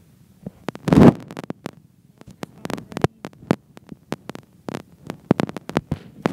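Fidget spinners spinning on a wooden tabletop: a faint low hum with many irregular sharp clicks and knocks, and a heavier thump about a second in.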